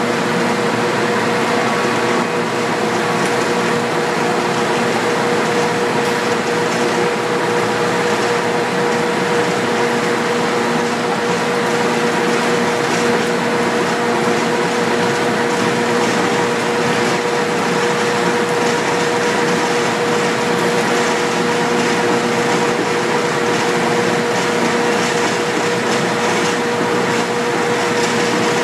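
Ring rolling mill running steadily as it rolls a red-hot steel ring: a loud, even mechanical drone with a steady hum tone through it and no hammer blows.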